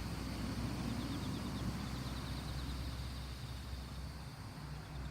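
Quiet rural outdoor ambience: a steady low rumble under an even hiss, with a thin steady high whine and a rapid high trill of short notes between about one and three seconds in.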